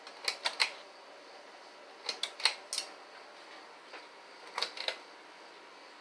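Pull-chain switch on a 44-inch Broan Alaska ceiling fan being pulled three times, about two seconds apart, each pull a quick cluster of sharp clicks from the switch and chain, over a faint steady background.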